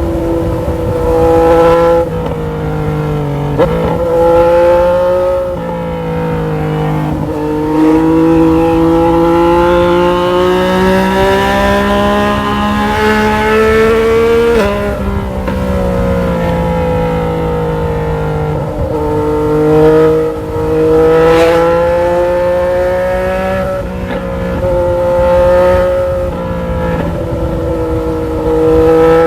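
Yamaha Tracer 900 GT motorcycle's 847 cc inline three-cylinder engine under way, its revs rising and falling with several gear changes. The longest pull is a slow steady climb in pitch, cut by a sharp drop about halfway through.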